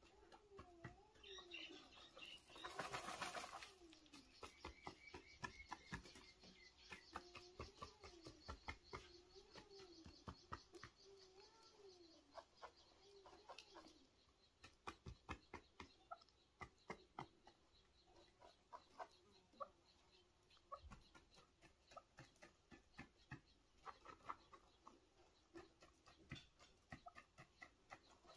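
Faint sounds of a chukar partridge fluttering its wings and shuffling on its side in dry, gravelly dirt: a burst of wing flutter about three seconds in, then many small scratching ticks of grit and feathers. A low wavering tone runs under the first half.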